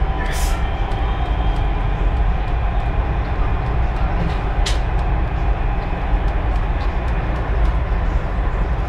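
Dubai Metro train running at speed, heard from inside the carriage: a steady rumble and rush of the car on its track. Two brief, sharp high sounds come through, about a third of a second in and about four and a half seconds in.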